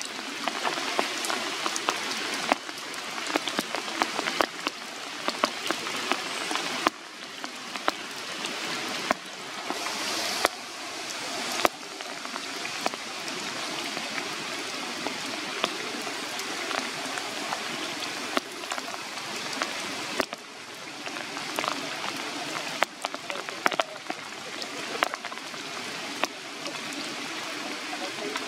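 Steady rain falling on forest leaves, a constant hiss with many irregular sharp ticks of raindrops striking nearby.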